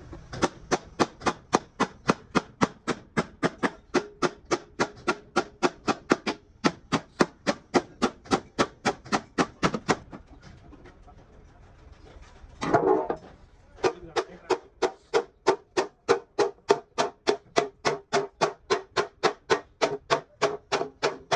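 Hammer beating on a dented truck fuel tank, about three blows a second, each with a ringing metallic tone. About halfway the blows stop briefly, there is one louder, longer clash, and then the steady hammering resumes.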